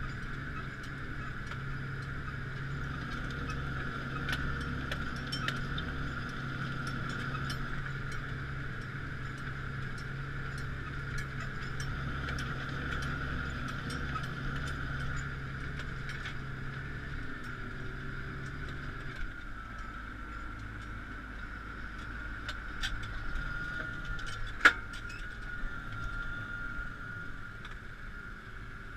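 Claas Axion 840 tractor engine running steadily while pulling a five-furrow plough. About two-thirds of the way through, the engine note drops and changes, and a sharp click comes a few seconds later.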